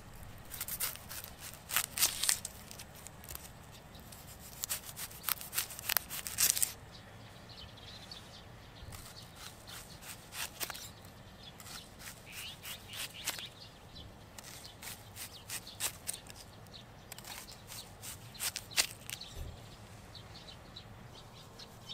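Dry onion skin crackling as it is peeled away with a kitchen knife, in dense bursts during the first seven seconds. Then come sparser crisp crunches and snaps as the knife cuts through the onion on a wooden stump.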